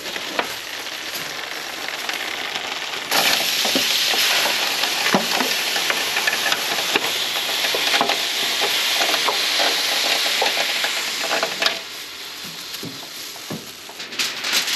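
Fish frying in a hot pan, a steady sizzle with small crackles. About three seconds in the sizzle jumps suddenly louder and hissier, and it drops back near twelve seconds in.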